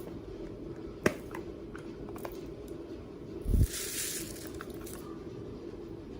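Slime being handled and squished: a sharp click about a second in, then a louder wet squelch about three and a half seconds in, over a steady low hum.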